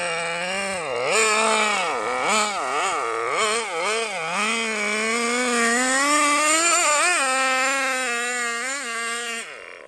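Small nitro glow engine of the Project Meteor radio-controlled snowmobile revving up and down in quick blips, then holding a steadier, higher pitch from about five seconds in. It fades near the end.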